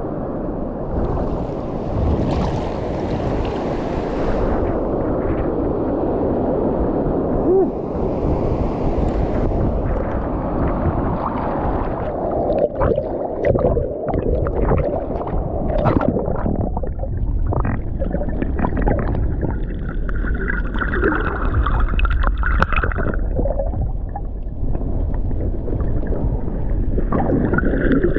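Sea water sloshing and gurgling as waves wash in and drain back, a steady churning with scattered knocks and splashes.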